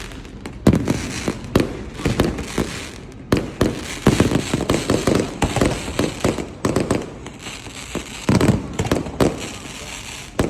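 Aerial fireworks display: an irregular string of bangs from bursting shells, a loud one about every second, with crackling in between.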